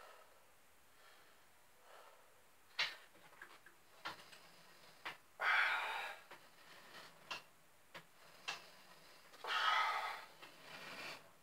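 Two hard exhales about four seconds apart, each as the handles of a seated cable fly are brought together, with scattered clicks and knocks from the cable machine in between.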